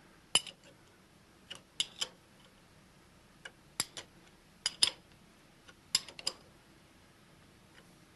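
A wrench clinking on the milling machine head's mounting bolts as they are tightened a little at a time, in sequence, after the head has been aligned: irregular sharp metal clicks, some in quick pairs.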